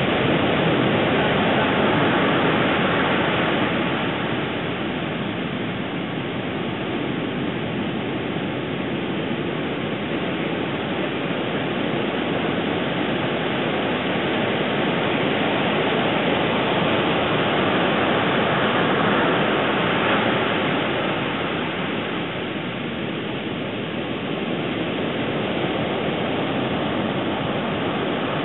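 Steady rushing noise of ocean surf, swelling and easing slowly over several seconds, with a faint steady high tone.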